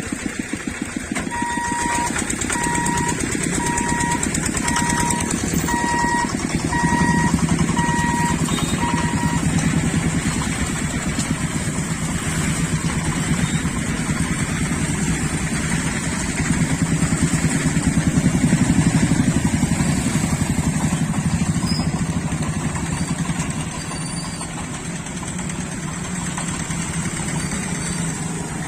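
Motor vehicle engines run steadily with a low drone. During the first ten seconds an electronic beep sounds about once a second.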